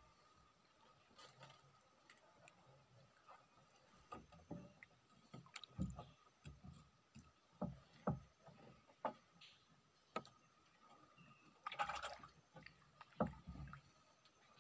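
Water lapping against the hull of a small wooden boat: quiet, with a string of soft low knocks from about four seconds in and a brief splashy rush near the end, over a faint steady high tone.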